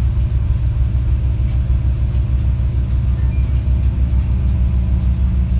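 Passenger train in motion, heard from inside the carriage: a steady low rumbling drone of running gear and motor, with no break or change.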